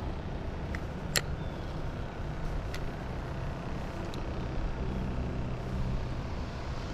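A steady low outdoor rumble, with a few short sharp clicks, the loudest about a second in.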